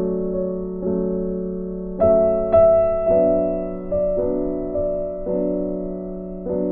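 Background music: soft piano playing slow, sustained chords, a new chord struck about once a second and left to ring and fade.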